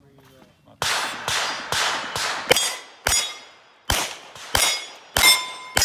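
A Heckler & Koch USP Expert 9 mm pistol fired about ten times in quick succession, roughly two shots a second, at steel plates. The struck plates ring after many of the shots.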